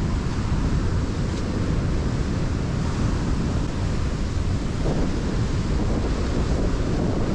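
Wind rumbling on the microphone over the steady wash of surf breaking on the beach.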